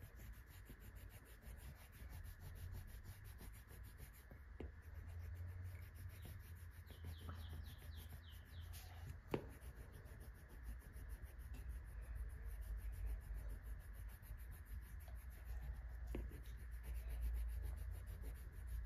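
Coloured pencil rubbing back and forth on paper, colouring in an area of the drawing. It is faint, with a few light clicks and a low rumble underneath.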